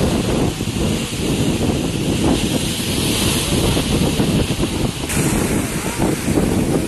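Sea waves surging and breaking against the rocks, with heavy wind rumbling on the microphone; the sound shifts a little about five seconds in.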